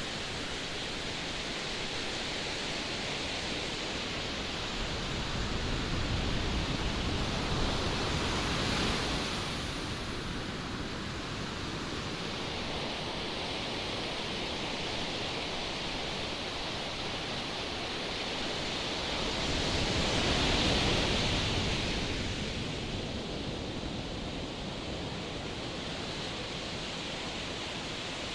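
Strong wind and sea surf: a steady rushing noise that swells louder twice, about a quarter of the way in and again past the middle.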